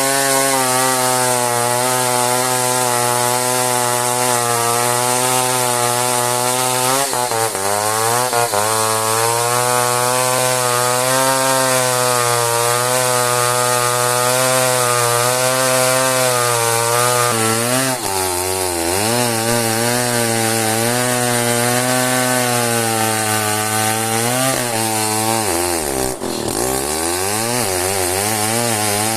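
Two-stroke chainsaw running at high speed while cutting through an old Merbau hardwood log, its engine note dipping and recovering three times as the chain loads up in the cut, the deepest dip near the end.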